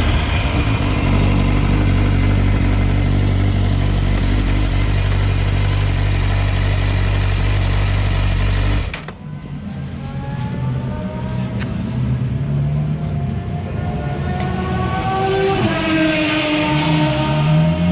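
Racing motorbike engines on a circuit: a loud, steady engine drone with road and wind noise, cut off suddenly about halfway. Then a motorbike accelerates, its pitch rising several times over as it climbs through the gears.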